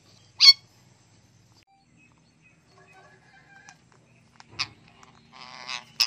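Parrots squawking: one sharp, loud squawk about half a second in, a shorter one near the end, then a harsh, raspy screech, with faint chirps in between.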